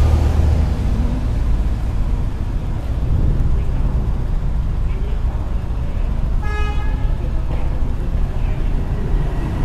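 Steady low rumble of road traffic, with one short vehicle horn beep about six and a half seconds in.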